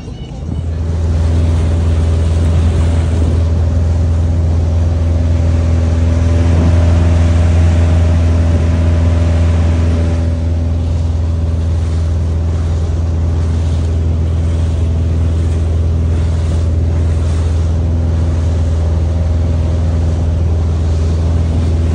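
Motorboat engine running steadily under way, a loud low drone that comes up in level about half a second in, with a steady rushing hiss over it.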